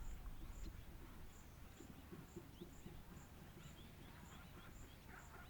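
Faint outdoor bush ambience: a high, thin pip repeated about twice a second, which sounds like an insect or a small bird, with scattered faint chirps. A low rumble like wind or handling noise at the very start fades off.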